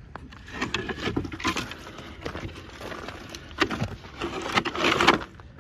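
Footsteps crunching on snow-covered ice while a wooden pallet is handled and set down, with knocks of wood and a louder stretch of scraping near the end.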